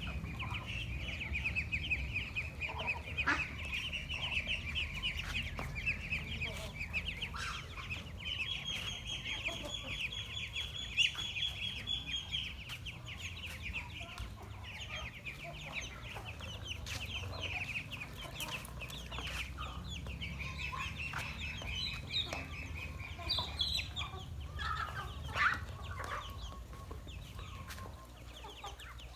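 A flock of ducks and ducklings calling without a break: a dense chorus of rapid high peeps, with scattered sharp clicks among them.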